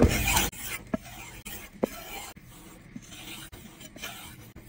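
Steel kitchen knife blade stroked across a wooden stropping block to remove the burr left by sharpening: one louder swipe at the start, then faint rubbing strokes with a few light clicks.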